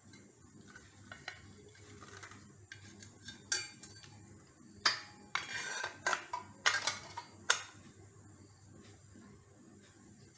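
Sharp metallic clicks and clinks, bunched in the middle, as a 24-tooth circular saw blade and its fixings are handled and fitted onto the saw.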